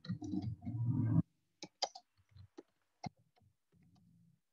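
A brief spoken phrase, then a handful of separate sharp computer keyboard key clicks as text is typed.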